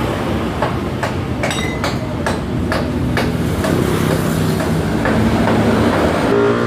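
Loud metallic clanking and rattling from work on a jackhammer, with sharp knocks about twice a second for the first few seconds. Near the end the sound changes abruptly to a steady hum.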